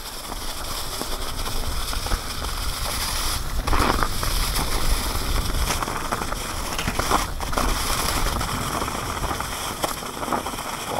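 Mountain bike tyres rolling over a trail of fallen leaves, a dense continuous crackling and rustling, over a steady low rumble of wind and riding noise on the helmet-camera microphone.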